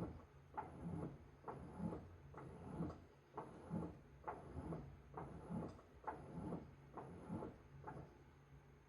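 Washing machine running, its laundry tumbling with soft thuds about twice a second over a low motor hum; the thuds stop near the end.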